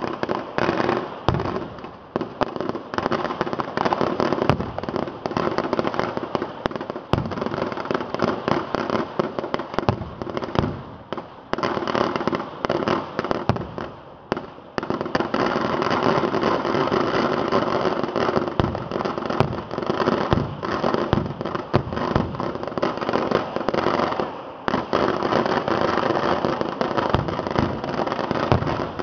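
Fireworks display: a dense, continuous barrage of firecracker bangs and crackling, with short lulls about halfway through and again near the end.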